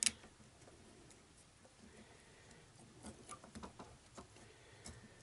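A sharp click, then scattered faint light clicks and taps from about three seconds in: small parts being handled on a dismantled motorcycle alternator.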